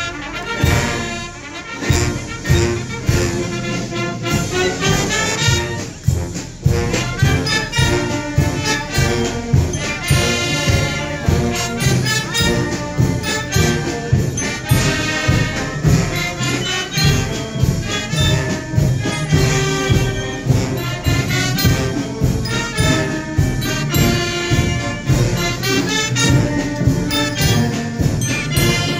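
Procession brass band playing a march: trumpets and trombones over a steady drum beat.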